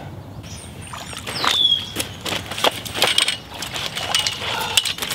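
Sloshing steps and splashes of rubber boots in shallow water and mud, with many small knocks and clicks. A bird gives a short falling whistle twice, about four seconds apart.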